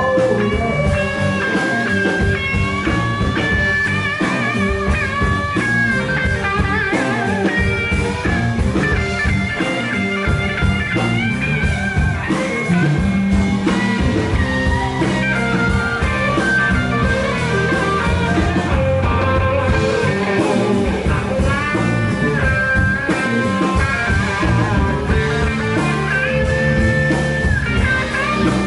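Live blues-rock band playing an instrumental passage: an electric guitar plays a lead line with wavering, bent notes over bass guitar and drums.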